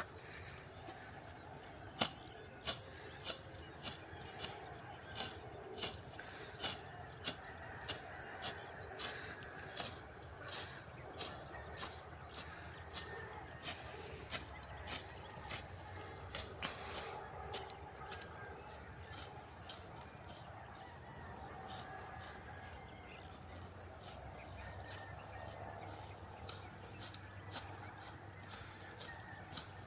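Long-bladed sickle slicing through grass and weeds in quick strokes, a sharp swish about every half second, coming thicker for the first half and more sparsely after. A steady high drone of crickets or insects runs underneath.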